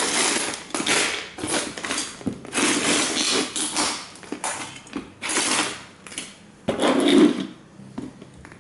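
Plastic model trains being crushed and ground under cowboy boots: repeated crunching and crackling of breaking plastic, with the loudest crunch about seven seconds in.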